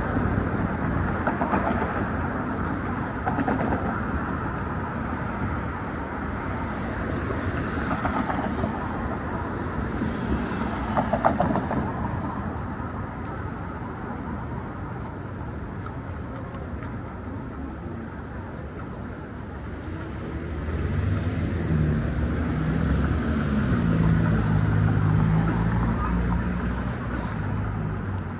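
Steady city traffic noise. In the last several seconds a large vehicle's engine hum builds up close by and then fades.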